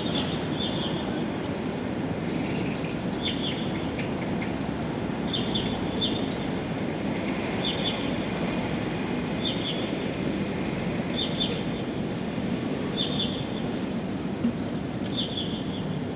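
A songbird repeating the same short, high call phrase about every two seconds, over a steady low rumbling background noise.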